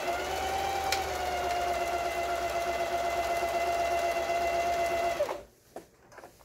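Singer Heavy Duty sewing machine stitching at a steady speed, its motor whine climbing as it speeds up at the start, then dropping and stopping about five seconds in, followed by a few faint clicks. The motor runs normally on a replacement foot pedal, the old pedal having short-circuited.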